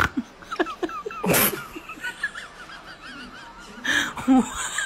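Birds chirping and warbling in the background, broken twice by short, sharp, breathy huffs, about a second in and again about four seconds in.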